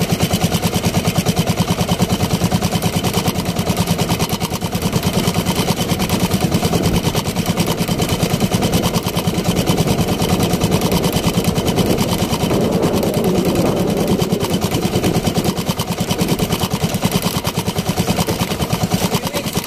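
Small outrigger fishing boat's engine running steadily under way, a fast, even putter with no change in speed.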